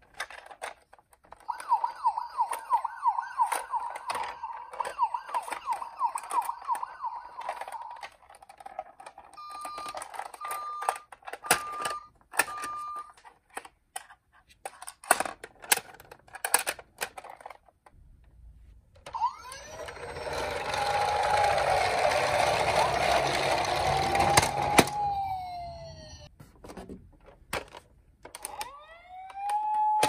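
Electronic siren sounds from battery-powered toy ambulances. First a fast warbling siren, then four short beeps and clicks of the plastic toys being handled. Then a louder, hissy siren slowly rising and falling, and another siren starting up near the end.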